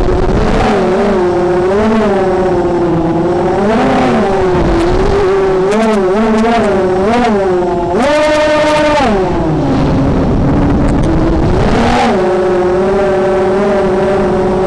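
The brushless motors and 5x4.5 propellers of a 250-size FPV racing quadcopter whine, recorded on board. The pitch keeps rising and falling with the throttle, with a long high-pitched punch about eight seconds in and a shorter one near the end.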